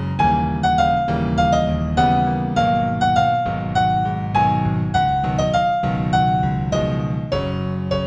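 Piano music in F major, new-age style: a slow melody of single struck notes that ring and fade, over low sustained chords.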